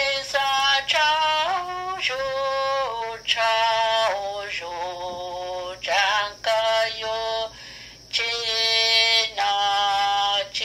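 A solo voice singing a slow melody in long held notes, phrase by phrase with short breaks, including a pause about eight seconds in.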